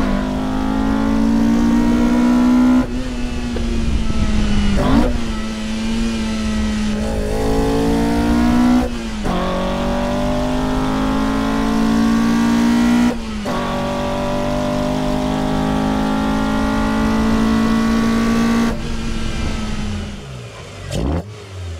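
Toyota 4A-GE 20-valve 'blacktop' four-cylinder engine with individual throttle bodies and open intake trumpets, revving high under hard acceleration. The tone breaks and drops several times as gears change, and the engine eases off near the end.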